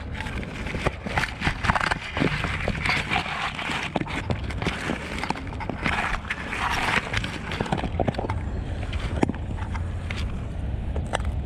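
A dog chewing a dried cow ear: irregular crisp cracks and crunches, with two longer bouts of dense crunching, one a second or so in and one about six seconds in, over a steady low rumble.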